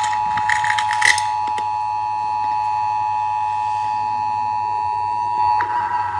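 Horn sound effect: a single steady, high held tone, with clicking, jingling noises over the first second or so. About five and a half seconds in, the upper part of the tone cuts off and the sound thins.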